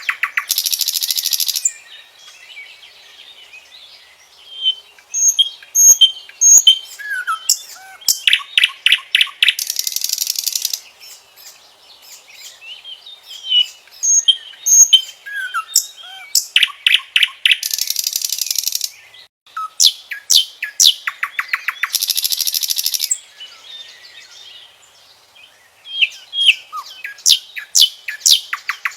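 Common nightingale singing: a run of varied phrases a few seconds each, mixing rapid repeated notes, loud buzzy rattles and short whistles, with short pauses between phrases.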